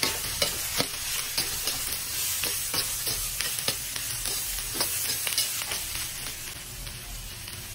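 A metal ladle stirring and turning chopped pork and crispy tofu cubes with onions in a stainless steel wok, over a steady frying sizzle. The ladle scrapes and clinks against the pan several times, irregularly.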